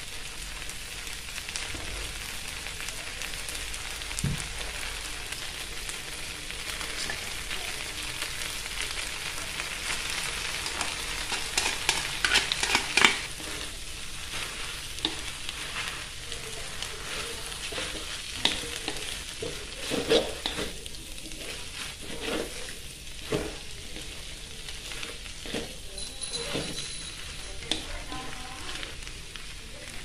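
Stir-fried noodles, vegetables and meatballs sizzling in oil in an aluminium wok while being tossed with tongs. The tongs clack and scrape against the wok in quick runs, heaviest past the middle.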